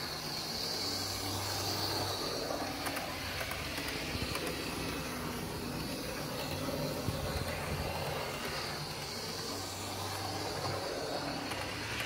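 An OO gauge Lima GWR diesel railcar model running steadily around the track: a steady whir from its small electric motor and wheels rolling on the rails.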